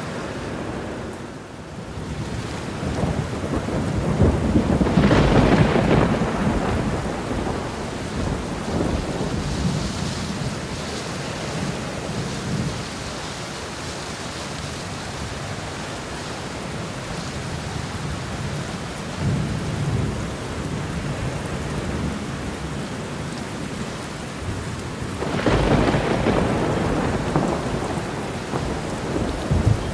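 Thunderstorm: steady heavy rain with thunder rolling in twice, a long rumble swelling a few seconds in and another near the end, with a smaller roll in between.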